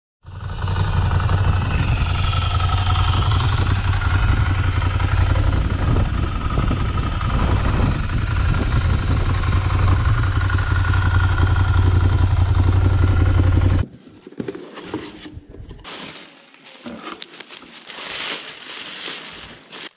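Ducati Scrambler Desert Sled's air-cooled 803 cc L-twin engine running steadily, then cutting off abruptly about fourteen seconds in. After that comes the irregular crinkling and rustling of honeycomb kraft packing paper and tissue being unwrapped by hand.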